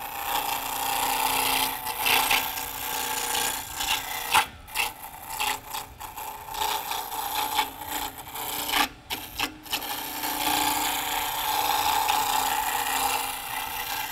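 A turning tool cutting a spinning aromatic cedar blank on a wood lathe: a continuous rasping scrape, dropping out briefly a few times as the tool comes off the wood.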